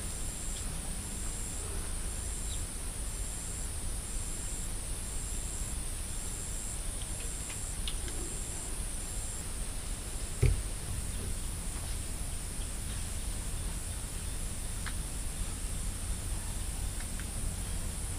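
Insects chirping in a steady high drone. For the first half a regular high pulse repeats about twice a second, over a constant low rumble. A single sharp knock comes about ten and a half seconds in.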